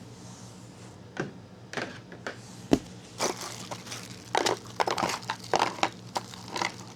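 Packaging being handled while accessories are unpacked from a box: rustling and crinkling with a string of short clicks and knocks, starting about a second in and continuing through most of the stretch.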